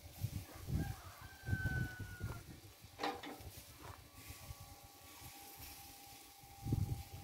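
A rooster crowing in the background, one drawn-out call about a second in, followed by a couple of light clicks.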